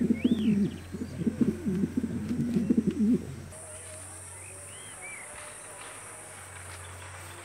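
Pigeons cooing in a rapid, wavering run that stops about three seconds in. A few short high chirps from small birds follow over a quiet outdoor background.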